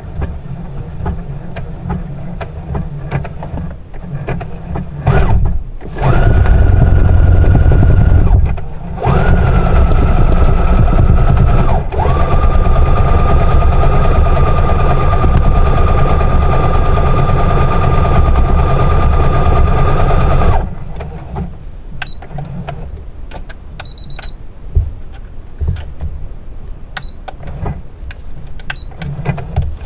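Brother CS7205 computerized sewing machine sewing a blanket stitch, its motor running with a steady whine. It sews in three runs: the first starts about six seconds in, the second follows after a short pause, and the third is a long one of about nine seconds that stops abruptly. Light clicks and knocks come before and after the sewing.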